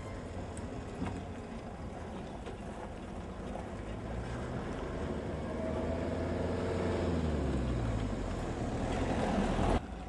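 Cars and 4x4s driving past on a road: a steady rumble of engines and tyres, with an engine note sliding in pitch as a vehicle goes by. The noise builds towards the end and then cuts off suddenly.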